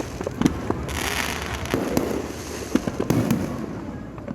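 Fireworks going off: a quick, irregular string of bangs and pops over a low rumble, thinning out near the end.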